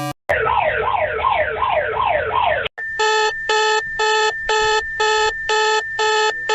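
Emergency alert alarm sounds. First a siren wails up and down about three times a second and cuts off. Then an alert tone beeps about twice a second, each beep a chord of steady tones, over one continuous high tone.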